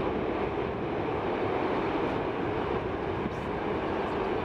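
Boeing 747's four jet engines running at low approach power as the airliner flares and touches down, a steady even rush of jet noise with no sharp change.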